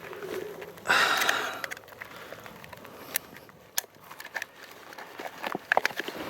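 Handling noise from working on a small portable tire pump: a rustle about a second in, then scattered small clicks and taps.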